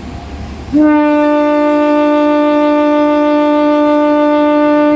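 Train horn sounding one long, steady blast at a single pitch, starting about a second in and held for over four seconds.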